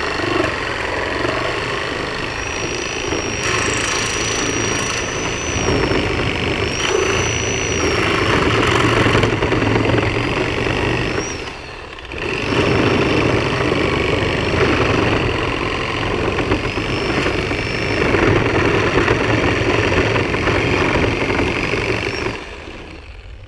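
Skil corded reciprocating saw with a Milwaukee nail-embedded wood blade, running at speed as it cuts a pallet board free from the middle stringer through the nails. It cuts in two long passes with a brief stop about halfway, then stops shortly before the end.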